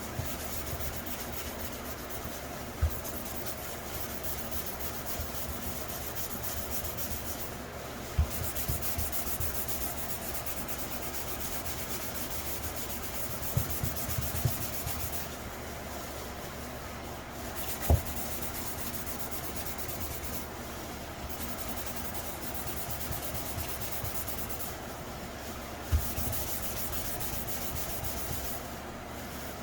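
Hand-sanding the clear coat of a helmet with a firm 3M sanding sponge: a steady back-and-forth rubbing hiss that stops briefly now and then. A few sharp knocks stand out above the rubbing, about four or five in all.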